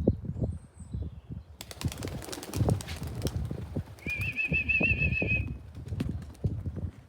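Pigeons' wings clattering as they take off, a dense burst about one and a half seconds in that lasts under two seconds. A short wavering whistle follows about four seconds in, over repeated low thumps.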